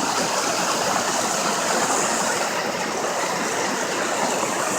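Steady rush of running water from a stream, even and unbroken.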